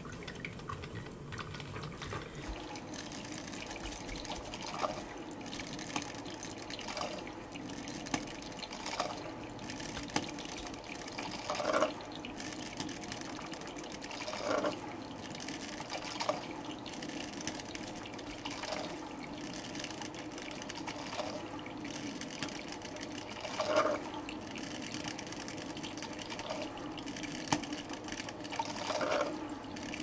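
Mainstays 12-cup drip coffee maker brewing: a steady trickle of coffee into the glass carafe, with a short gurgle from the machine every two to three seconds.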